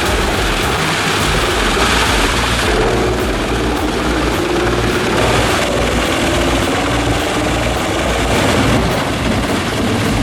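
Heavy machinery running loudly and continuously, its engine note wavering in pitch in the middle of the stretch.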